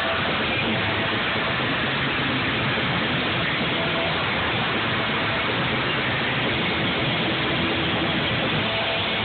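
Live doom metal played very loud, its distorted guitars, bass and drums overloading the phone's microphone into a dense, steady wash of noise, with a few low sustained notes faintly showing through.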